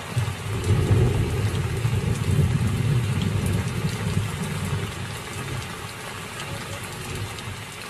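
Storm wind blowing hard with a deep rumble, loudest about a second in and dying away over the next few seconds, over a steady hiss of wind-blown dust.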